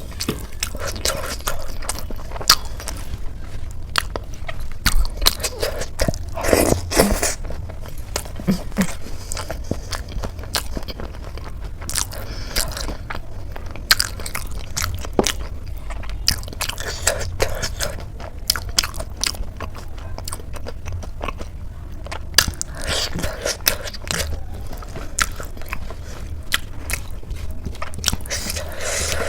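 Close-miked biting and chewing of crisp food, samosa with ghugni and chillies: irregular crunches and clicks of the mouth, with a few louder clusters of crunching, over a steady low hum.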